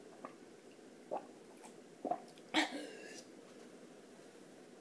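A person sipping and swallowing ice-cold water from a glass bowl in a few short separate sounds, then a louder, sharp burst of breath about two and a half seconds in as she comes up from the water.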